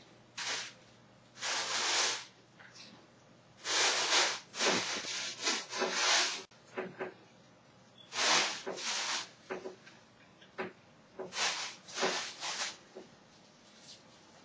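Rustling and crinkling of leafy greens and plastic produce bags being handled, in a series of irregular bursts separated by short pauses.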